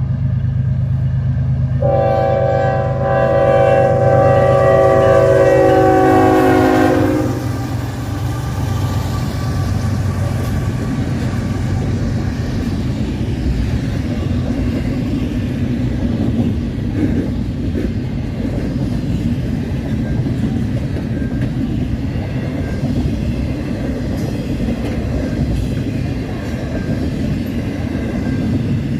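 CN ES44AC locomotive's Nathan K5HL five-chime horn sounding one long chord over the diesel engine's running, the pitch dropping just before the horn stops after about five seconds. Then the steady rumble and clatter of double-stack container cars rolling past on the rails.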